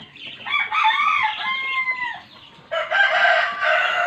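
A rooster crowing twice: a long crow that holds its pitch and then drops at the end, followed by a second crow about two and a half seconds in.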